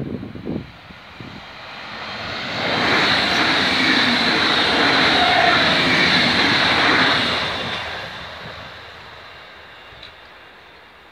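A red regional multiple-unit passenger train passing a level crossing: the steady noise of its wheels on the rails builds, stays loud for about five seconds as it goes by, then fades away. Wind buffets the microphone at the very start.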